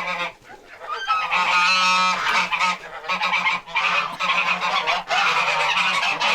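Domestic geese honking over treats: a dense run of repeated honks starting about a second in, after a brief lull.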